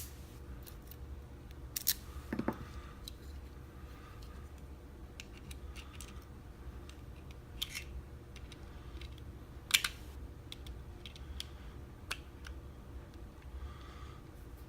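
Scattered light metallic clicks and taps from handling a disassembled Kale dimple lock and its key, the loudest about ten seconds in, over a steady low hum.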